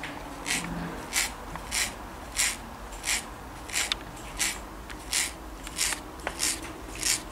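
A Maine Coon cat licking with her head inside a plastic cone collar: a very loud, regular rasping of tongue strokes, about three every two seconds.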